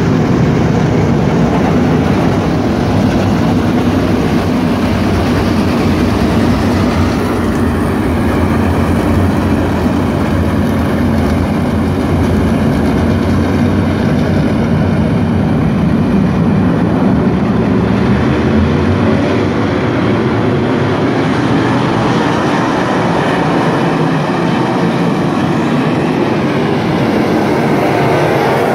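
A field of dirt-track race cars circling the oval, many engines running loud and steady at once. A higher engine whine stands out from about a quarter of the way in for some ten seconds.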